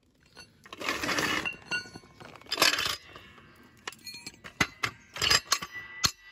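Steel floor jack being handled as a stuck bar on it is worked at. Two rough scrapes come first, then a run of sharp metallic clinks and knocks in the second half, some of them ringing briefly.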